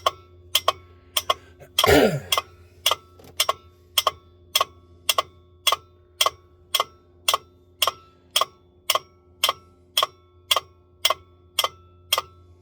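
Steady, even ticking at about two ticks a second, over a faint low hum. About two seconds in comes one short sound with a steeply falling pitch, like a cough or grunt.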